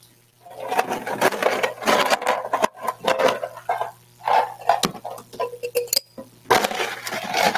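Irregular clattering, rattling and scraping of coffee-making equipment being handled on a kitchen counter.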